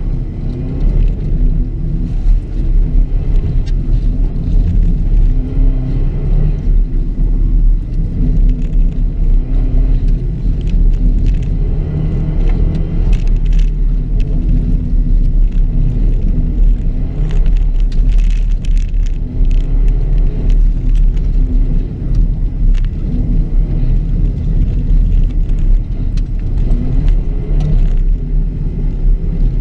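2006 Subaru WRX's turbocharged flat-four engine under hard driving on a loose dirt course, its revs climbing and dropping again and again with a heavy rumble. Sharp ticks of gravel and stones hit the car now and then.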